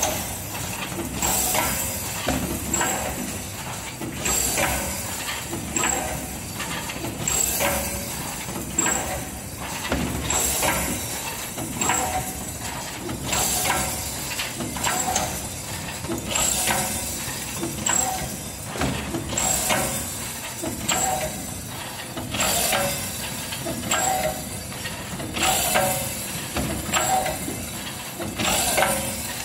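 Automatic roll-film sachet packaging machine running through its cycle: about every three seconds comes a burst of hissing air with mechanical clatter from its pneumatically driven sealing and cutting stations, with lighter clicks in between.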